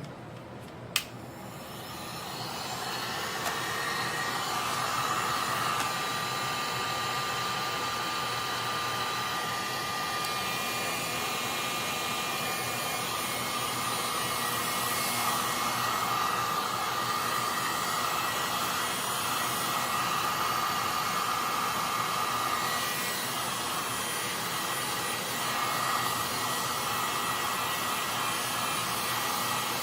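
A hot air blower running steadily, applying gentle heat to dry water out of a wet laptop's circuit board. A click comes about a second in, then the blower's rush builds up over the next couple of seconds and holds, with a faint steady whine.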